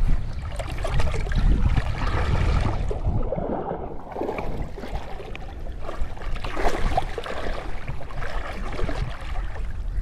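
Shallow sea water sloshing and splashing around a person wading and moving their hands through it, with wind buffeting the microphone as a low rumble. The sound turns briefly muffled about three seconds in.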